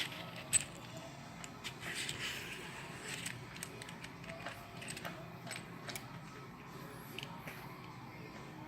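Scattered light clicks and clinks of small metal parts and screws being handled while fitting a mount to a shotgun.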